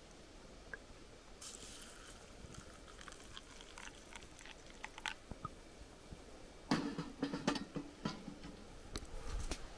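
Small stick fire crackling with scattered faint clicks, and a louder cluster of rustling and clicks about seven seconds in.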